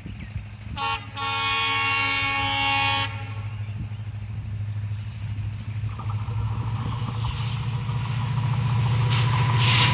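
Indian Railways locomotive horn: a brief toot, then a long blast of about two seconds. Then the rumble of the approaching train grows steadily louder.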